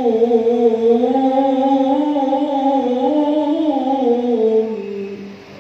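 A Quran reciter's voice holding a long, ornamented melodic note without words, wavering in pitch, then stepping down and fading out near the end as the phrase closes.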